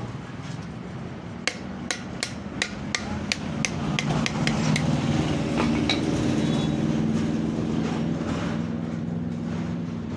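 A quick run of light hammer taps, about three a second, over a steady low hum that gets louder about halfway through.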